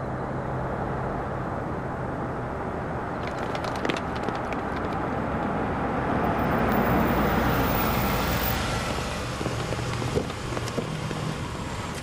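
A car driving up and pulling in: engine and tyre noise that grows to its loudest about seven seconds in, then eases off as the car slows.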